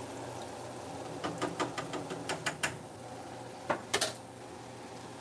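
Metal fork clicking and scraping against a skillet of frying ground beef, green peppers and onions: a run of about eight quick taps, then three louder knocks about a second later, over the steady low sizzle of the frying meat.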